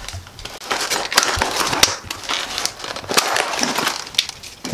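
Rigid clear plastic clamshell packaging of a door lock set being cut and pried open: a run of sharp crinkles, cracks and snaps of stiff plastic.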